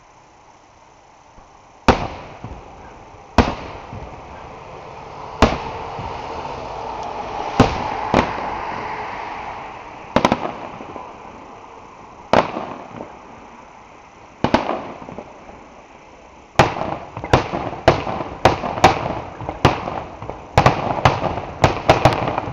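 Aerial fireworks shells bursting: single sharp bangs every couple of seconds, each trailing off into the night air. About two-thirds of the way in they turn into a fast volley of bangs, about two a second.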